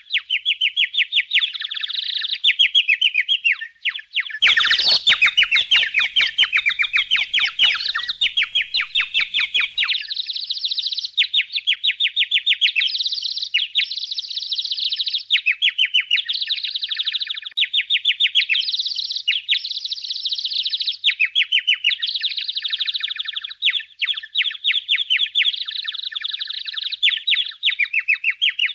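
Budgerigars chattering and chirping continuously in rapid trills, with a run of quick clicks mixed in for several seconds near the start.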